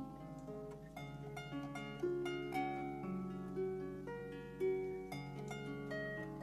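Background music of plucked string notes, a new note every half second or so, some held over the others.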